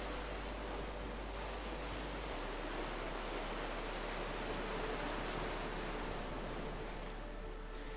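Steady wash of ocean-wave ambience, with faint held music tones beneath it.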